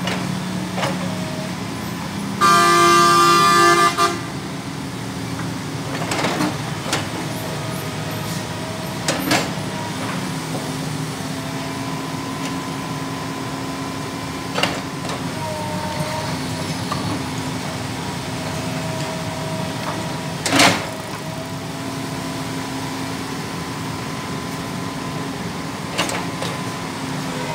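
Komatsu PC200LC hydraulic excavator's diesel engine running steadily as it works a brick wall down, with a few sharp knocks of brick and bucket, the loudest about twenty seconds in. A vehicle horn sounds one long blast about two and a half seconds in, the loudest sound here.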